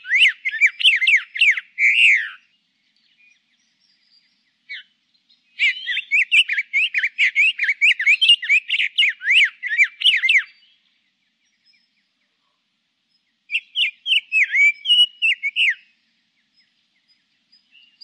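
Male common chaffinch singing: three bursts of song, each a fast run of sharp, chirpy notes, the middle one about twice as long as the others, with pauses of a few seconds between.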